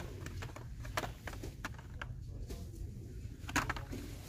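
Blister-carded die-cast toy cars clicking and rustling as they are flipped through on metal peg hooks, a few sharp clicks with the loudest about three and a half seconds in, over a steady low background hum.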